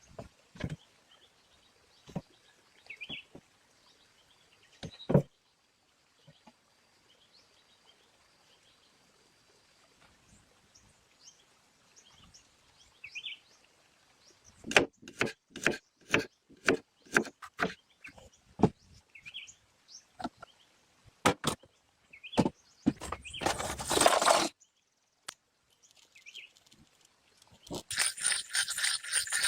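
Irregular knocks and clicks, in a thick run about halfway through, with faint short chirps between them and two stretches of dense scraping noise near the end.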